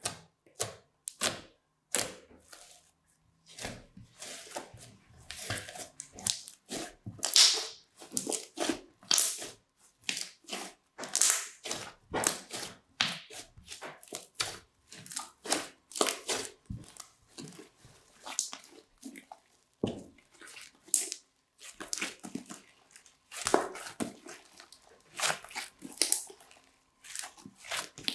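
Crunchy slime being poked, squeezed and stretched by hand: an irregular run of sharp sticky pops and crackles, several a second.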